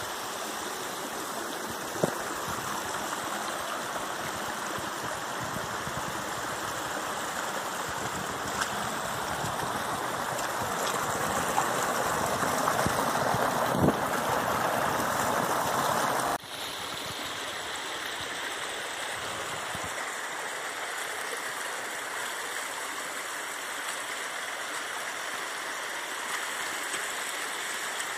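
Small rocky stream rushing over low cascades: a steady rush of water that grows louder toward the middle, then drops suddenly to a lighter rush about halfway through. A couple of brief knocks come through.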